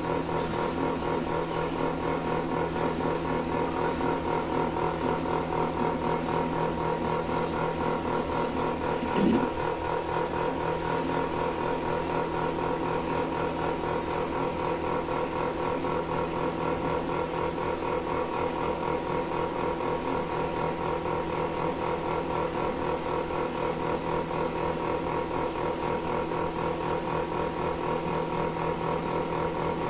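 Milking machine running steadily: an even mechanical hum with a fast, regular pulse. A brief louder knock comes about nine seconds in.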